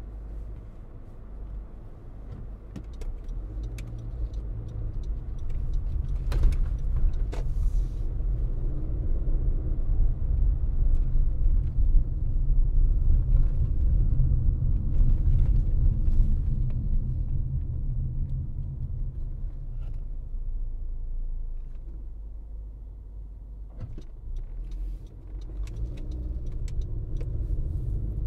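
Car driving: a low road and engine rumble that builds over the first several seconds, eases off about two-thirds of the way through, then builds again, with a few faint clicks and rattles.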